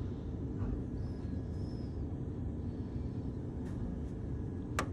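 Steady low background rumble, with a single sharp click near the end.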